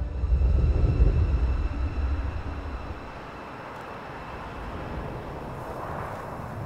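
A deep, low rumble swelling in at the start and fading over about three seconds, then a steady airy, wind-like noise.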